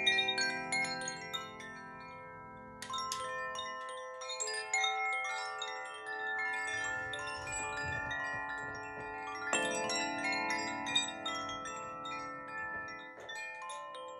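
Koshi chimes, bamboo-cased wind chimes, shaken by hand so their inner tuned rods tinkle and ring in overlapping, lingering tones. Fresh rushes of strikes come about three and ten seconds in.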